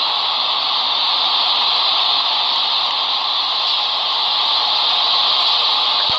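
Loud, steady static hiss that stops abruptly with a click near the end.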